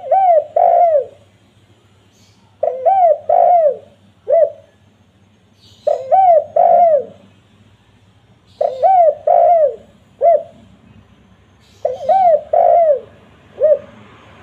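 Spotted dove (tekukur) cooing: five phrases repeated about every three seconds. Each phrase is two drawn-out, arching coos, most followed by a short clipped note.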